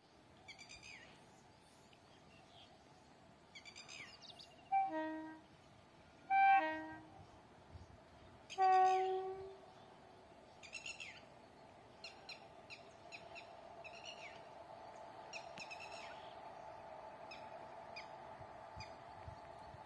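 Birds chirping, with three loud, short tonal calls or blasts in the middle, each fading quickly; the last is the longest. From about halfway a faint steady rumble slowly builds.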